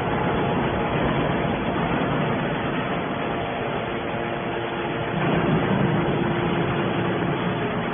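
Hydraulic can baler's motor and pump running with a steady mechanical hum and noise.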